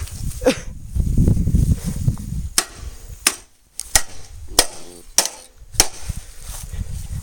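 Pieces of a scrapped microwave being struck repeatedly: six sharp hits about two-thirds of a second apart, after a low rumble in the first two seconds.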